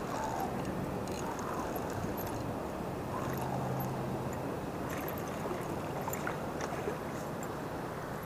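Steady rush of flowing river water, with faint ticks and a short low whir from a spinning reel as a small smallmouth bass is reeled in.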